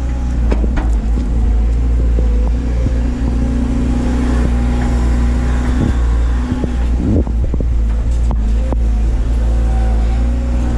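Doosan DX180 excavator's diesel engine running steadily at working speed, with a higher hum that comes in about three seconds in and drops out near six seconds, and scattered short knocks, more of them near the end.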